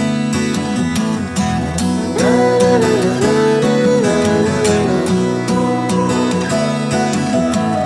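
Background music led by an acoustic guitar, a country-style track with a steady strummed rhythm.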